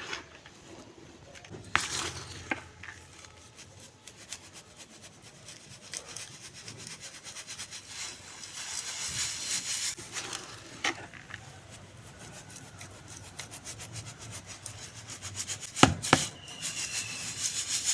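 Dry crumbly lumps being crushed and rubbed by hand: a dense crackle of small cracks, with two loud snaps about sixteen seconds in.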